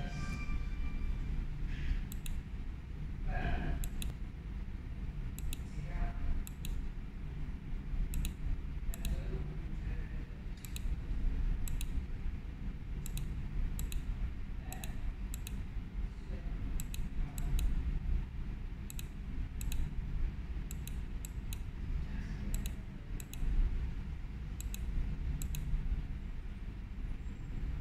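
Sharp, irregular clicks, roughly one every half second to a second, from the X-ray scanner's operator controls being clicked through image-processing modes, over a steady low hum.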